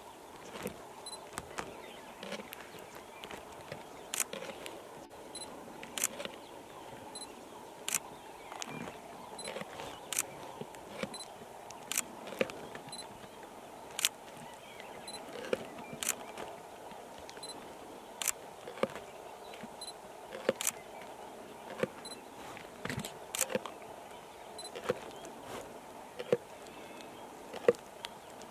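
Camera shutters clicking at irregular intervals, one every second or two and sometimes two in quick succession. Beneath them are softer short sounds of lions chewing and tearing at a buffalo carcass.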